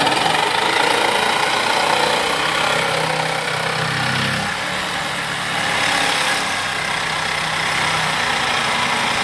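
Corded jigsaw running steadily, its blade sawing through the wooden toe kick of a cabinet base.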